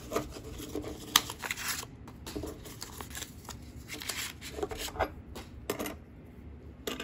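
Canadian silver dollars clicking against one another as they are picked up and stacked by hand, with paper rustling between the clicks.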